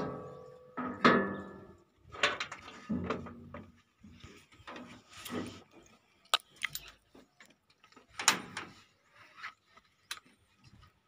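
Metal tools and parts clanking and knocking on an excavator's steel deck during hand repair work, about a dozen separate knocks and clatters. The first two, in the first second or so, are the loudest and ring on briefly like struck steel. The engine is not running.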